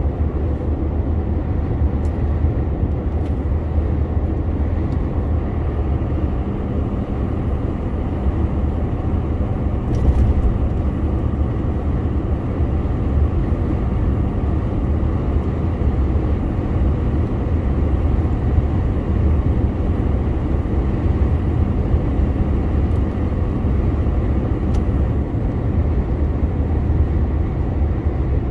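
DAF CF 480 lorry's straight-six diesel engine and road noise at a steady cruise: a constant low drone, with a few faint knocks now and then.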